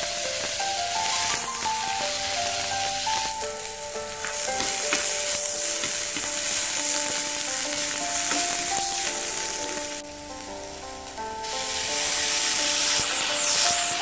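Chopped onion sizzling and frying in hot oil in a nonstick pan, stirred with a wooden spatula. The sizzle drops out briefly about ten seconds in, then comes back louder.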